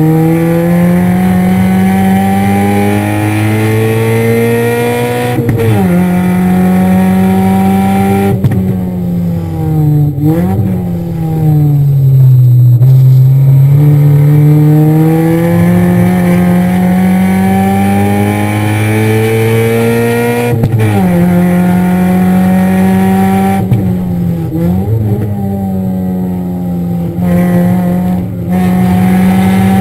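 Car engine heard from inside the cabin while lapping a road course: revs climb steadily and drop sharply at upshifts about 5 and 21 seconds in. Between these, the engine note falls away under braking, with quick rev blips on downshifts near 10 and 25 seconds.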